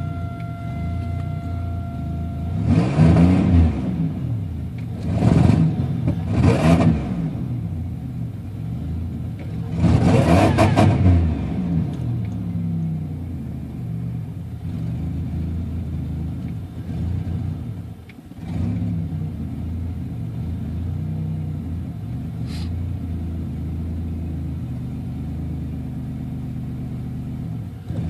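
Supercharged 3800 V6 of a Buick Regal idling, blipped four times in the first dozen seconds, each rev rising and falling back to idle. The owner is chasing a misfire that keeps showing up on cold mornings.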